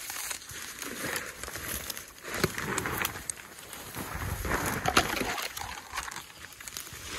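Irregular rustling and cracking of brush underfoot, with scattered clicks and snaps as someone moves through wet undergrowth.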